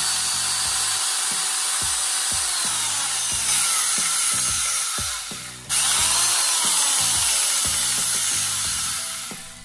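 Restored Makita electric shear cutter running in two long bursts with a brief stop about five seconds in, a loud dense metallic whir.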